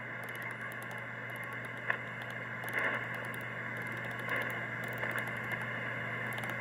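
Homebrew SSB receiver's speaker hissing with 40-meter band noise as it is tuned down the band in lower sideband, over a steady low hum. There are a few brief louder blips.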